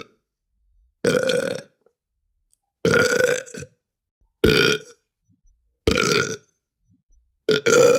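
A series of separate human burps, about five, each lasting under a second, with short silences between them.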